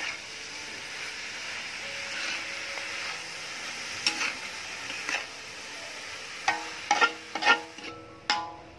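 Metal spatula scraping and knocking against a wok while stir-frying bean sprouts, chives, shrimp and tofu, over a steady sizzle. The knocks come more often in the second half.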